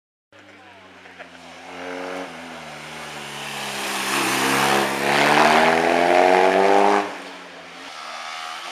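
Motorcycle engine accelerating along a road, growing louder with its pitch rising a little, then dropping off sharply about seven seconds in.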